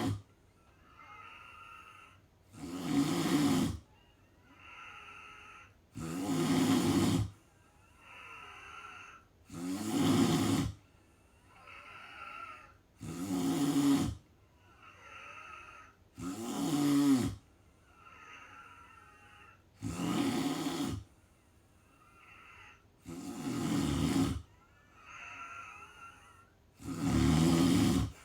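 A sleeping person snoring in a steady rhythm: eight loud, rasping snores about every three and a half seconds, with a quieter breath between each.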